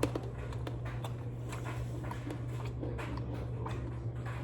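Someone eating ice cream close to the microphone: scattered small clicks and mouth sounds, over a steady low hum.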